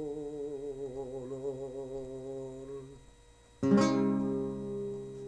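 A singer holds the song's final note with a wide vibrato over a guitar, fading out about three seconds in. After a short pause, a closing guitar chord is struck sharply and left to ring out.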